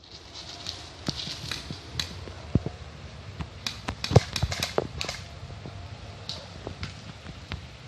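Irregular sharp clicks and snaps over a steady background hiss, bunched together about four seconds in.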